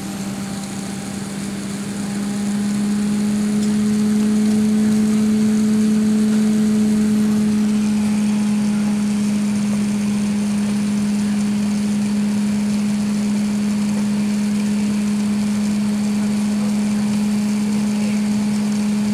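Airbus A380 cabin noise on the ground before takeoff: a steady low hum over an even rush of air, growing louder about two seconds in and then holding steady.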